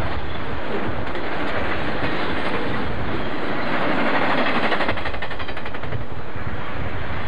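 Santa Fe intermodal freight train's trailer-on-flatcar cars rolling past: a steady rumble of steel wheels on rail that swells about halfway through, with a quick run of rhythmic wheel clicks.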